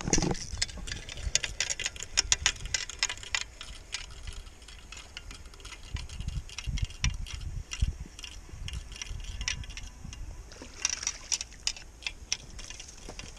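Spinning reel ticking and clicking as a hooked trout is played and reeled in, the clicks thickest in the first few seconds and again near the end. Under them are low knocks and rustling from handling and clothing against the body-worn camera.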